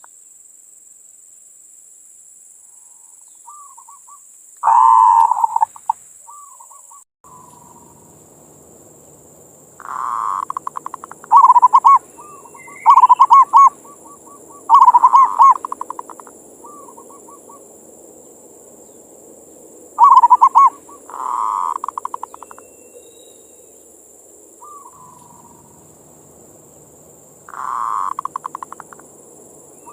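Zebra doves (perkutut) cooing their manggung song: repeated phrases of rapid, pulsed coos, some loud and close, some fainter, coming in clusters with gaps of a few seconds. A faint steady hiss and a thin high whine run underneath.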